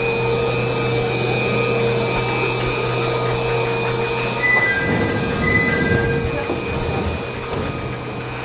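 Jōmō Electric Railway electric train, a former Keio Inokashira Line car, standing with its doors open, its onboard equipment giving a steady hum with a high whine over it. About halfway through, a two-note high chime sounds twice over some low rumbling.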